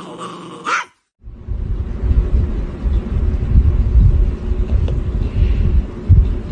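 A dog growls and vocalizes briefly, cut off about a second in, followed by a loud, steady low rumble.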